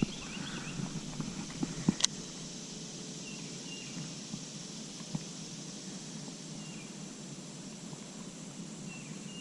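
Outdoor ambience by a pond: a steady hiss with a few faint short chirps, and one sharp click about two seconds in.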